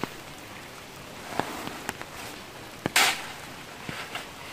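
A metal shovel blade scraping and digging into a heap of wet soil. There are a few sharp clicks, and one loud, short crunching scrape about three seconds in.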